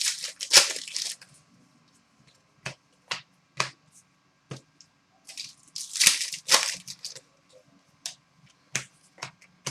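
Hockey trading cards being handled and flipped through: two short rustling slides of card stock, one right at the start and one around six seconds in, with scattered light clicks and taps of cards in between.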